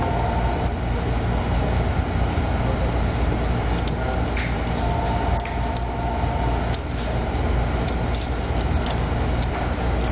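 A steady low background hum, with a few scattered faint clicks and creaks as a 3/8 NPT thread tap is turned by hand with locking pliers into a plastic intake tube.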